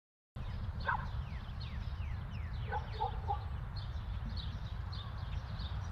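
Outdoor ambience that cuts in just after the start: birds calling, with many quick falling chirps and a few louder calls about one and three seconds in, over a low steady rumble.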